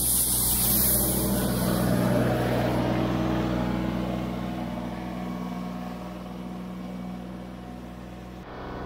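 John Deere 1585 front-mount tractor's diesel engine running steadily as it sweeps past with a rotary broom clearing snow from blacktop. The hiss of the broom throwing snow fades in the first few seconds, and the engine hum grows steadily fainter as the tractor pulls away. Near the end a sudden break brings the engine back closer and louder.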